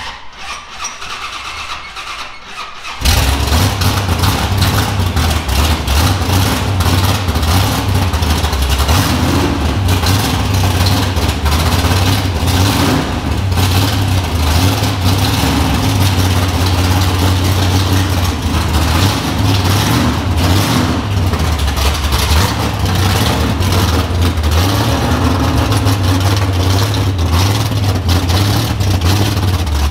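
1969 Hurst-built AMC AMX Super Stock drag car's 390 V8 starting up: it catches suddenly about three seconds in and then runs loud with a choppy, lumpy idle, its pitch rising and falling with a few revs.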